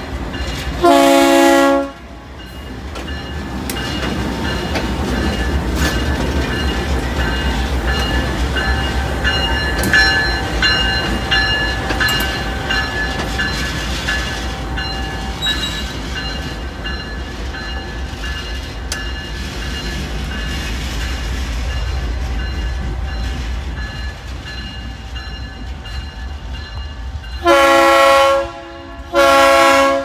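GE Dash-9 diesel locomotive sounding its multi-chime horn in one short blast about a second in. It then rolls close by with the diesel engine rumbling and wheels clicking on the rails, and gives two more short horn blasts near the end.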